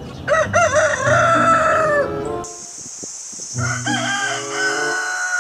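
Rooster crowing twice: two cock-a-doodle-doos of about two seconds each, the second starting a little past halfway. A steady hiss comes in under the second crow.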